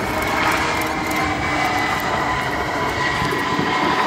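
Airbus A320's IAE V2500 turbofan engines running steadily as the airliner rolls out after landing: a steady high whine over a broad jet rumble.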